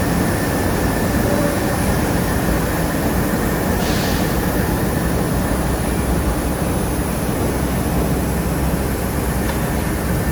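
A Chicago 'L' train running on the steel elevated tracks overhead, giving a loud, steady rumble of wheels and structure.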